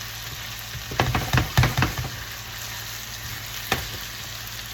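Diced potatoes, pepper and onion sizzling steadily as they fry in a pan, with a quick cluster of clattering knocks in the pan about a second in and one more knock near the end.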